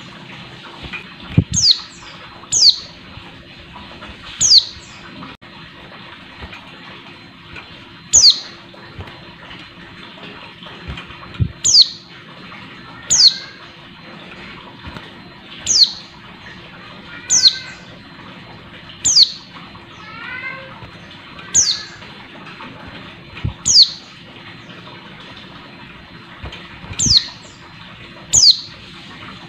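Female white-eye (pleci) calling: about a dozen sharp, high single notes, each falling quickly in pitch, repeated every one to four seconds. This is the call a female uses toward males. A softer, lower twittering comes in the middle, along with a few low soft thumps.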